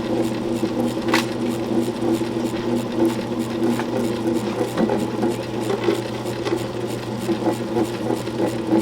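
Old electric grindstone running with a steady motor hum, its wet stone turning. A brief tick about a second in.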